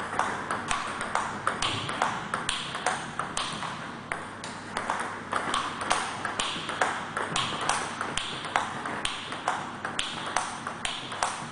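Table tennis ball knocked back and forth in a steady rally, clicking off the bats and bouncing on the table about three times a second in an even rhythm.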